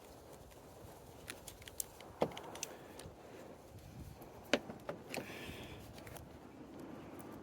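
Scattered light clicks and clacks of a ratcheting MC4 crimp tool and the metal connector pin being handled while crimping the pin onto the wire. There are two sharper clicks about two and four and a half seconds in, and a short rustle soon after the second.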